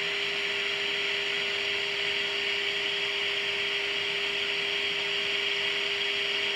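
Steady static hiss from the speaker of a 1947 Admiral 7T10M AA5 radio, with a steady low test tone mixed in: the signal generator's modulated signal at 1630 kHz coming through while the radio's trimmers are set during alignment.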